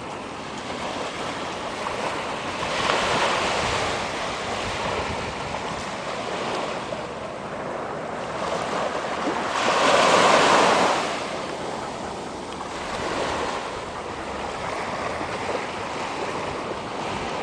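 Surf breaking on a beach, the waves swelling and falling back in turn, the biggest about ten seconds in.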